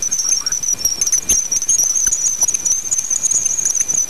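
Voyager spacecraft's recording of Jupiter's bow shock, played back as sound: a steady, high, wavering hiss with scattered crackles and clicks, heard as whispering. It is the sound of the solar wind being deflected by Jupiter's magnetic field.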